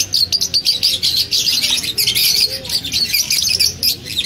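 A flock of Fischer's lovebirds chattering: many birds calling at once in a dense stream of rapid, high-pitched chirps and squeaks.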